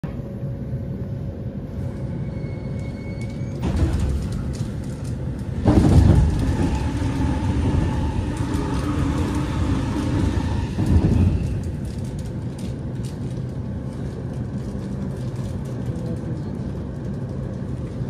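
Electric commuter train heard from inside the carriage, slowing for an emergency stop: a steady rumble of wheels on rail, with a louder stretch from about six to eleven seconds in that carries steady tones.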